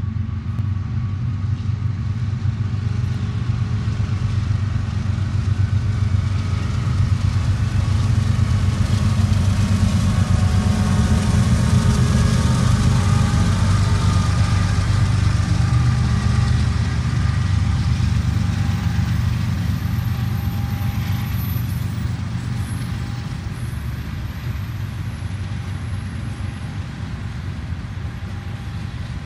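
CSX diesel-electric freight locomotive rumbling past at close range, growing louder to a peak about halfway through. It is followed by the steady rolling rumble of the loaded Herzog ballast hopper cars passing on the rails.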